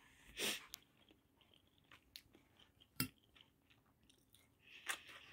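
Faint chewing and crunching of a cucumber slice: a few crisp bites spread out, with a sharp click about three seconds in.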